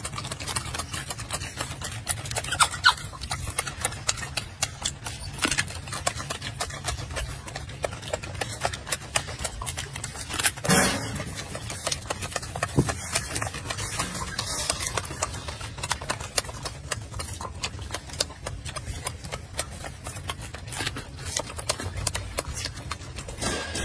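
Golden snub-nosed monkey chewing fruit close up: a dense, irregular run of small wet crunching clicks, with a louder burst about eleven seconds in.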